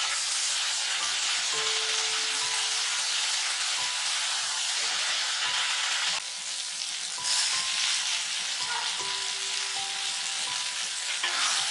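Onions, garlic and greens sizzling in hot oil in a pan while being stirred with a wooden spatula. The sizzle runs steadily, dipping briefly about halfway through.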